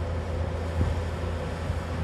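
JCB tracked excavator's diesel engine running steadily under load as the full bucket lifts and swings, with a short knock a little under a second in.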